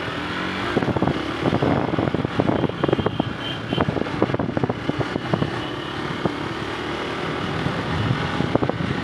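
Hero XPulse motorcycle being ridden, its engine running under heavy wind noise, with many short knocks and rattles throughout.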